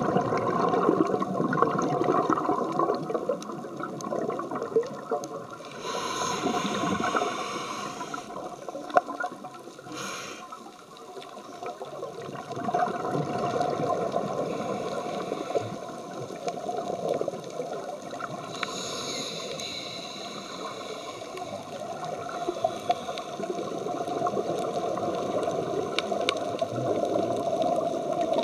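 Underwater sound through a camera housing: steady water noise, with a scuba regulator's exhaled bubbles rushing past twice, about six seconds in and again near two-thirds through. One sharp click comes shortly after the first burst of bubbles.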